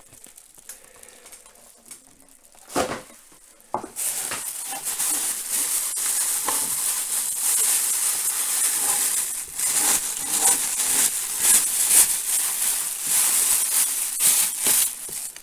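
Thin plastic bag crinkling and rustling as hands unwrap a packed toy piece. It starts about four seconds in, after a couple of short knocks.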